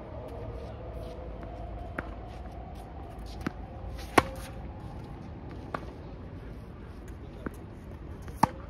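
Tennis ball struck back and forth in a baseline rally: sharp pops of racket hits and ball bounces every second or so. The loudest hits, from the near racket, come about four seconds in and near the end.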